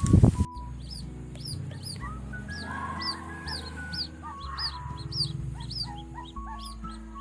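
Background music with a bass line that steps from note to note, under rapid, repeated bird chirps. It opens with a couple of loud thumps that cut off suddenly about half a second in.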